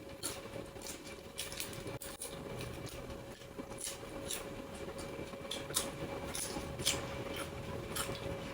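Close-up eating sounds: chewing and mouth clicks, with scattered crisp crunches, over a steady faint hum.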